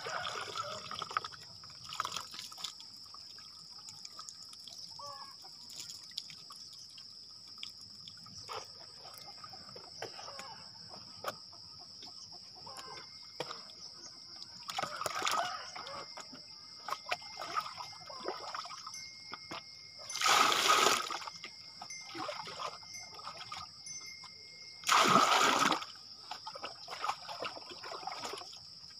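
Water poured from a bowl over a bather and splashing down, in several bursts of about a second, with quieter trickling and dripping in between. A steady high-pitched drone runs underneath.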